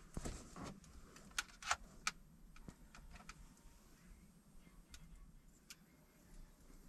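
Scattered small clicks and taps from handling wiring and connectors at the terminals, the strongest just under two seconds in and a couple more around five seconds in.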